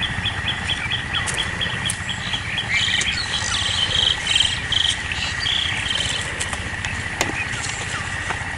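Outdoor insect and bird chorus. Insects keep up a steady high-pitched drone, while birds call over it: a fast run of evenly spaced chirps, about four a second, for the first couple of seconds, then more varied warbling calls until about halfway through.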